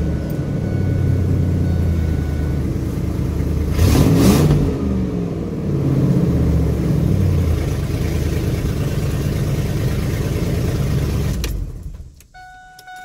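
Ford pickup truck engine just after starting, idling, with a brief rev about four seconds in and a smaller one a couple of seconds later. It is switched off near the end, leaving a faint steady tone.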